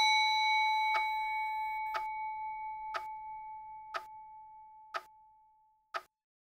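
Cuckoo clock ticking about once a second. Over it, the ringing of a bell chime fades away and dies out about five seconds in.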